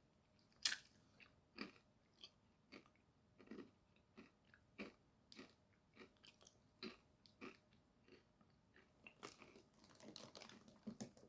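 A person eating: quiet chewing with irregular short crunches and mouth clicks, about two a second, the sharpest just under a second in and a denser run near the end.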